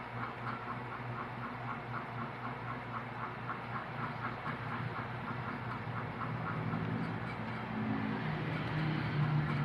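Computer keyboard keys being typed in a quick, uneven run of clicks over a steady low hum, with a low rumble swelling near the end.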